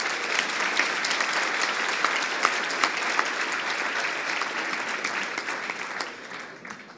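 Audience clapping at the end of a short talk, dense and steady at first, then thinning and fading out near the end.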